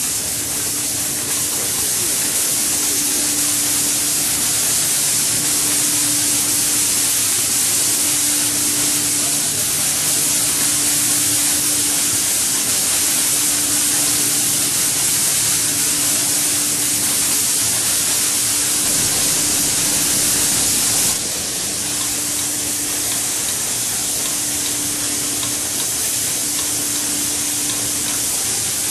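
Automatic shoe-outsole spraying machine running: a steady, loud spray hiss, with a faint low hum that swells and fades about every two and a half seconds. The hiss drops slightly about twenty seconds in.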